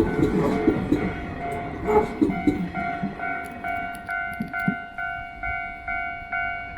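Japanese railway level-crossing alarm ringing, a steady electronic ding repeated about twice a second. A passing Kintetsu train's rumble and wheel clatter fade away over the first two or three seconds.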